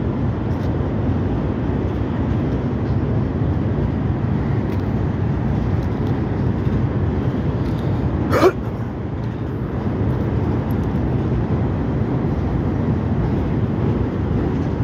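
Steady low rumble of a long CSX freight train's cars rolling over a steel truss bridge, with one brief high squeak about eight and a half seconds in.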